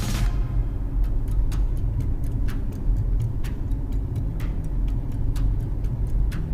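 Car cabin on the move, with steady low road rumble and a turn-signal indicator ticking, a stronger tick about once a second with fainter ticks between.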